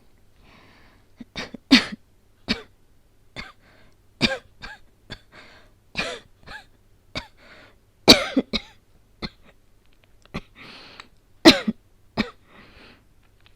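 A woman coughing over and over in short fits, with breaths drawn in between; the hardest coughs come near the start, in the middle and near the end. It is acted as the cough of an asthmatic with a cold who has just said she is short of breath.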